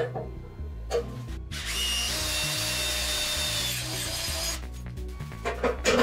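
A power tool runs for about three seconds, starting about a second and a half in, with short metallic knocks before and after as parts are handled. Background music plays throughout.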